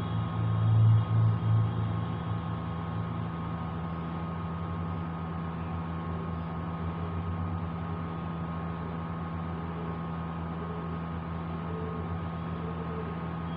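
Steady low hum with a faint hiss of room noise, and a few loud low rumbles about a second in.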